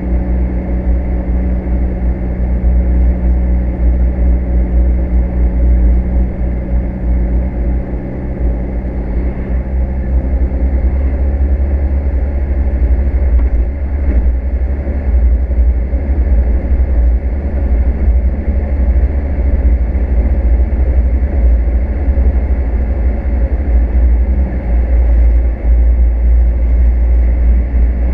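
Car driving along a sealed highway: a steady low rumble of engine and road noise, with an engine hum that eases off about ten seconds in.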